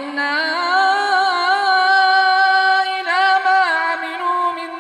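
Melodic Quran recitation by a single reciter, the last word of the phrase drawn out into one long held note. The note wavers in slow ornamental turns, with a quicker run of pitch changes about three seconds in.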